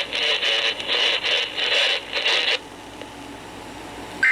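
Radio-received emergency alert broadcast audio: a crackling, broken-up stretch of signal that drops to a low hiss after about two and a half seconds. Right at the end a shrill digital data burst begins, the first of the repeated bursts that mark the EAS end-of-message code.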